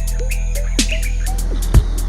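Background music with a steady beat of low thumps and quick high ticks, and short gliding synth notes over it.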